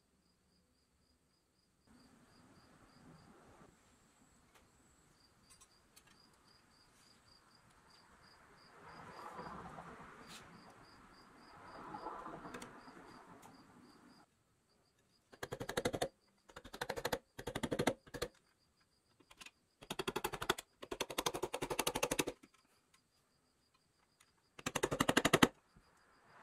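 Soft handling and rubbing, then from about halfway through, seven short bursts of rapid mechanical rattling, each well under a second to about a second and a half long; these are the loudest sounds. Faint, evenly repeated high chirps run underneath.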